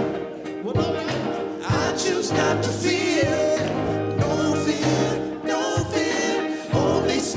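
Live gospel song: singers vocalizing over keyboard accompaniment with held bass notes and occasional sharp beats.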